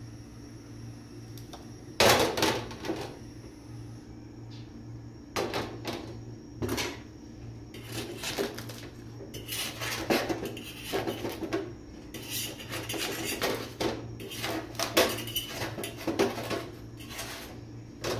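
Metal clatter from cooking on an iron tawa over a gas burner: one loud clank about two seconds in, then a run of short scrapes and taps of a metal utensil against the tawa while the roti is turned and pressed on it.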